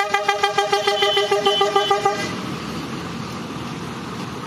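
Passing bus's horn sounding in rapid, even pulses, about six a second, stopping about two seconds in; after that the bus's engine and tyres go on as it drives by.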